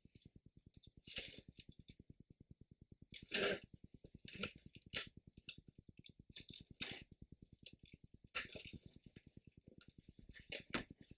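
Scattered crackling, rustling handling noises in several short bursts, the loudest about three and a half seconds in, over a faint fast low pulsing.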